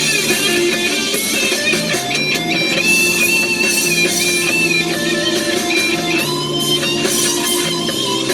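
Instrumental passage of a rock song, with guitar over a steady bass line and held lead notes.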